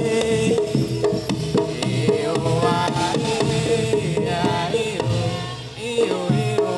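Live Javanese jaranan ensemble music: dense hand-drum strokes drive a wavering melody line over a held tone.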